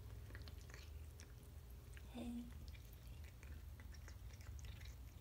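Faint chewing of a cat eating canned wet food: scattered small wet clicks. A short low hum about two seconds in.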